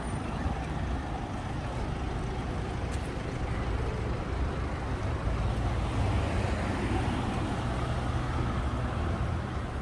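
Steady city street noise of road traffic, cars passing.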